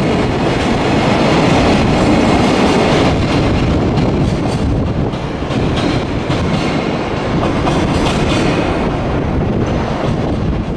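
Freight train of empty container flat wagons rolling past, a steady rumble with the wheels clattering over rail joints.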